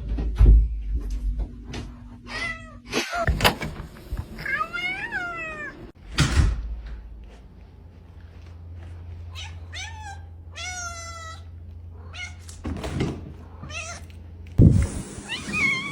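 A cat meowing several times, some calls long and bending in pitch, with a few thumps and knocks in between.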